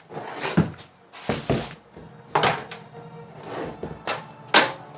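Knocks and clatter of tools and parts being moved about and set down on a workbench, half a dozen separate bangs with a little metallic ring after some of them.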